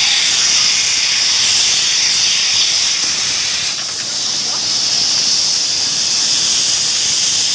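Tarpaulin edge-hemming machine running with a steady, loud hiss of air and a thin high whine held through it, as the tarpaulin is fed through to hem both edges.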